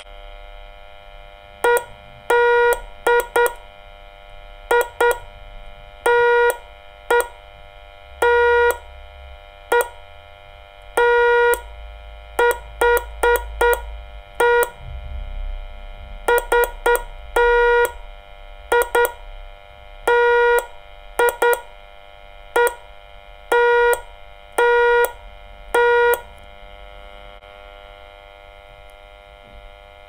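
Morse code beeps from a portable band radio's speaker, picking up a homemade Morse transmitter keyed by a push button: short and long buzzy beeps spelling out "LIKE THE VIDEO", over a steady faint hum, stopping about 26 seconds in.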